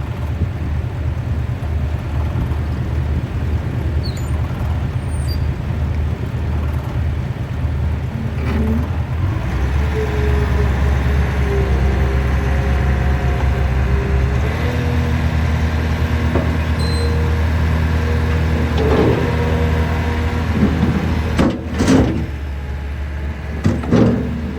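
Bobcat T-590 compact track loader's four-cylinder diesel engine running while the machine works, picking up speed about ten seconds in, with a steady whine over the engine. A few sharp clanks near the end.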